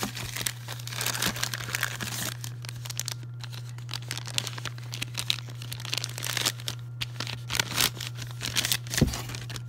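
Plastic air-pillow packing crinkling and rustling as it is handled and shifted inside a cardboard box, in dense irregular crackles, over a steady low hum.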